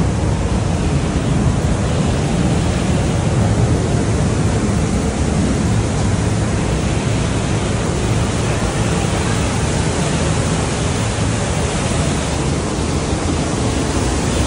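Johnston Canyon's Lower Falls: loud, steady rushing of a waterfall, an even noise heaviest in the low end.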